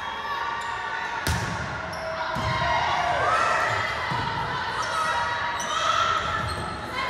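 Indoor volleyball court sounds: sneakers squeaking on the gym floor and balls thudding, with one sharp smack of a ball a little over a second in, in a large echoing hall.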